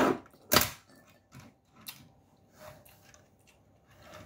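Eating at a table: two loud thumps about half a second apart at the start, then faint clicks of wooden chopsticks in a ceramic bowl.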